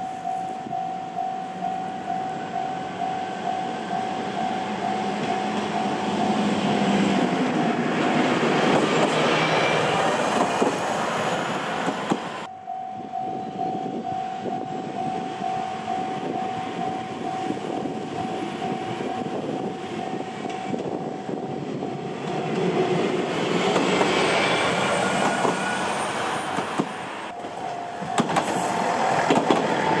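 Japanese level-crossing warning bell ringing steadily, about two strokes a second, while a single-car diesel railcar approaches and its engine and wheel noise swell, loudest as it reaches the crossing near the end. The sound breaks off and restarts abruptly about twelve seconds in.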